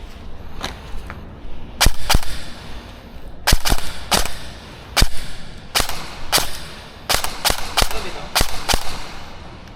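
Airsoft guns firing single shots: about a dozen sharp cracks at uneven intervals, starting about two seconds in, some in quick pairs.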